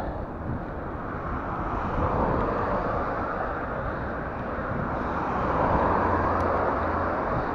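Street traffic passing close by, a steady rushing noise that swells twice. A deep engine hum comes in near the end as a large vehicle draws alongside.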